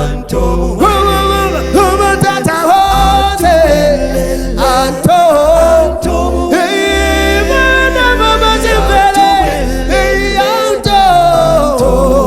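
A cappella gospel vocal group singing in harmony, with a lead line gliding over the other voices and sustained low bass notes underneath.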